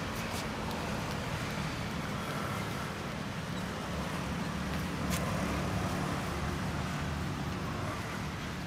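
Steady road traffic rumble, with a few faint clicks.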